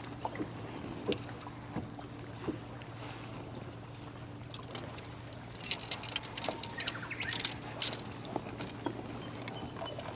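Small waves splashing and lapping against a boat's hull, heaviest in a flurry of slaps in the middle of the stretch, over a steady low hum.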